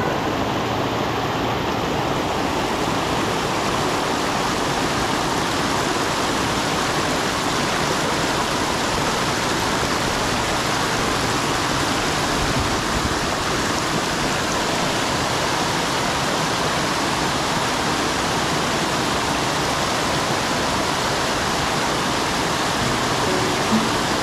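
Small rocky creek rushing and splashing down a run of little cascades: a steady, unbroken sound of running water.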